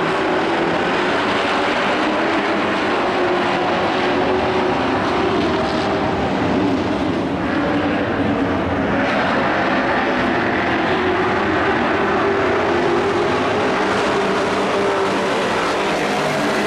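Engines of several dirt-track racing pickup trucks running hard around the oval, a steady loud drone whose pitch wavers up and down as the trucks accelerate and lift.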